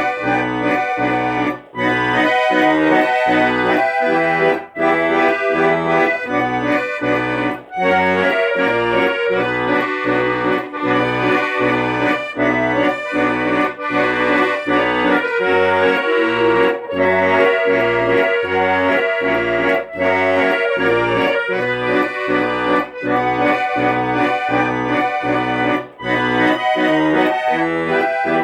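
Accordion music without singing: a melody played over a steady alternating bass-and-chord accompaniment.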